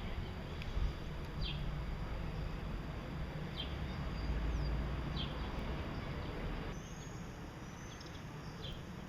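Gouldian finches calling: short, high, downward-sliding chirps every second or two, more of them near the end, over a steady low rumble.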